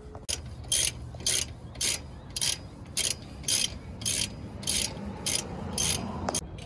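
Hand ratchet wrench being swung back and forth, its pawl giving a short burst of clicks on each stroke, about two a second, while tightening a bolt during brake pad and rotor fitting.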